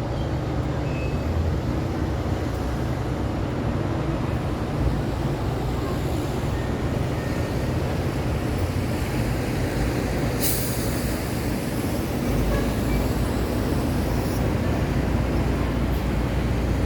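Steady city road traffic: the low rumble of heavy trucks and other vehicles passing, with a short sharp hiss about ten seconds in. The low rumble grows heavier near the end.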